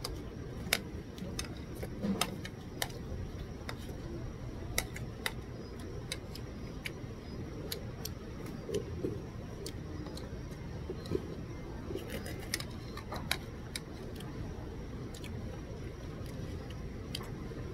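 Metal spoon clinking and scraping against a bowl while eating, as irregular sharp clinks scattered through, over a steady low hum.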